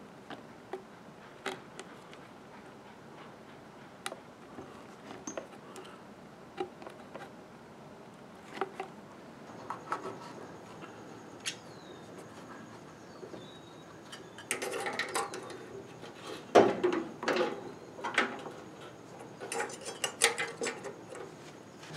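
Handling sounds as a rubber radiator hose with metal hose clamps is worked onto a Model T's radiator neck and engine water outlet. Scattered light clicks and taps, then a stretch of louder rubbing and knocking about two-thirds of the way through.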